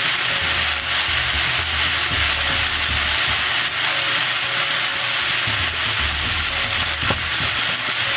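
Egg roll filling of shredded cabbage and meat sizzling in a skillet as it is stirred with a wooden spoon, an egg being scrambled through it. A steady frying hiss.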